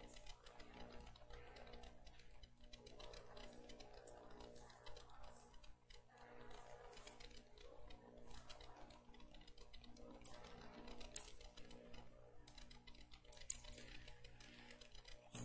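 Near silence: faint room tone with a steady low hum and a few small clicks, most of them in the second half.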